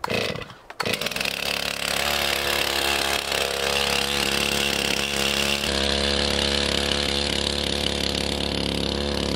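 Gas chainsaw started with a pull of the cord, catching about a second in, then idling steadily.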